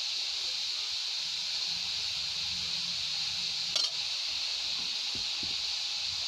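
Steady hiss of grated carrots cooking in a hot kadhai, with a single clink of a steel spatula against the pan nearly four seconds in as stirring begins.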